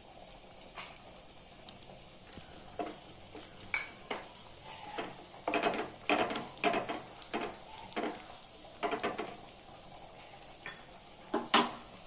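Cashew nuts frying in ghee in a metal kadai with a faint steady sizzle, while a wooden spatula stirs them, scraping and knocking against the pan in a quick run of strokes in the middle and once more near the end.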